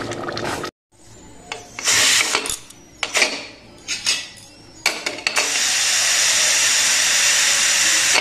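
Aluminium pressure cooker whistling: steam hisses out through the weight valve in a few short puffs, then in a steady loud hiss for about three seconds. This is the single whistle the pulao is cooked to.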